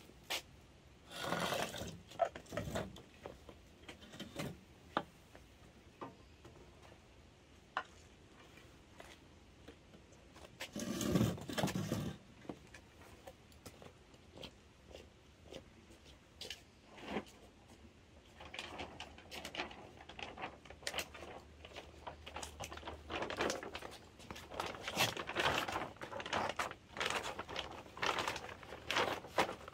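Scattered knocks, clicks and short rustles of hands-on work, then, in the last third, a denser crinkly rustling of a large plastic sack being handled and opened.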